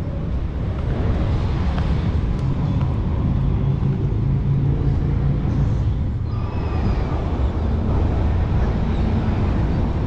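Wind buffeting the microphone of a camera carried outdoors: a steady, loud, low rumble that flickers constantly.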